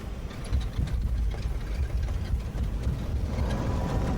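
Airbus A310 jet engines in reverse thrust during the landing rollout, heard in the cockpit: a steady low rumble that swells about half a second in and holds.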